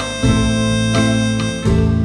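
Background music: guitar and harmonica playing a melody of held notes.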